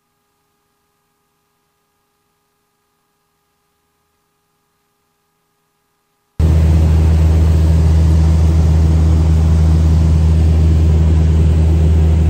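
Near silence with a faint steady hum, then about six seconds in the Mooney M20E's four-cylinder engine and propeller noise inside the cabin cuts in suddenly: a loud, steady, deep drone of an aircraft in cruise.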